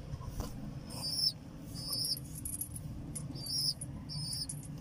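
Pigeon squabs peeping: four short, high-pitched peeps about a second apart, over a low steady hum.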